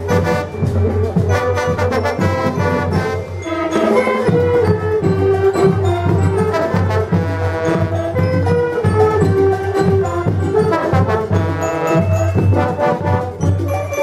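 Marching band playing a tune on brass and woodwinds (trombones, saxophones, sousaphone, clarinets), with drums keeping a steady beat.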